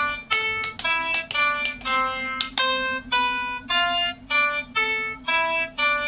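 Electronic light-up button fidget cube in its make-music mode, sounding a quick run of single electronic notes, about three a second, each at a different pitch.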